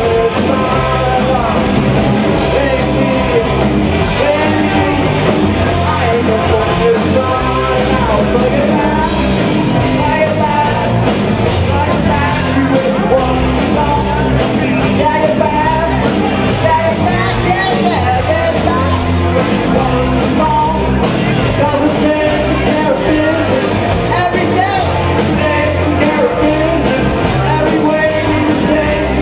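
Live rock band playing with a singer, over a steady beat.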